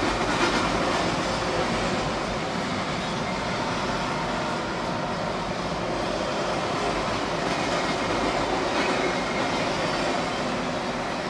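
Freight train rolling past, its steel wheels running on the rails in a steady rumble and clatter.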